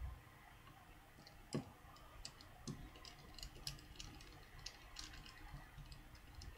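Faint, irregular light clicks and ticks from small iPhone 3G parts and tools being handled and fitted during reassembly.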